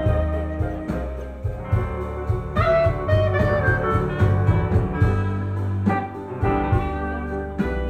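Live small-group jazz: a woodwind plays the melody over double bass, drums and piano.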